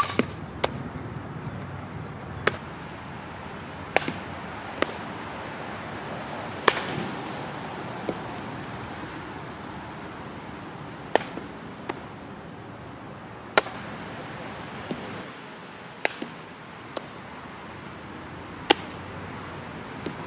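Sharp cracks and pops of a softball being struck by a bat and caught in a leather glove, about a dozen at irregular intervals, over a steady outdoor background hum.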